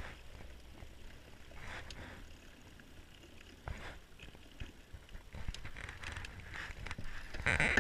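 Electric trolling motor pushing a small aluminium boat, a low steady hum, with a few short rushes of water noise and scattered light knocks on the hull.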